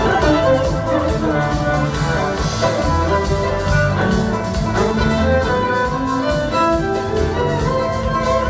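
Live band music from a string band with fiddle, upright bass and drum kit playing a steady groove with sustained notes, heard from the audience.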